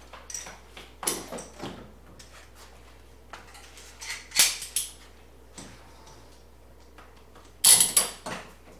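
Scattered knocks and clatter of wood and tools being handled. There are a few sharp knocks, a louder cluster about halfway, and the loudest burst of clatter near the end.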